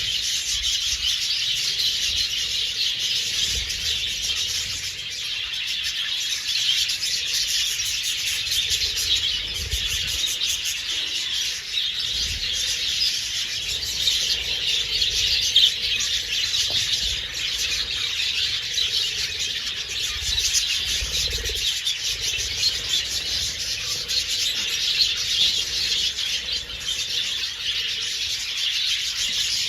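A flock of budgerigars chattering and chirping without pause, many birds calling over one another.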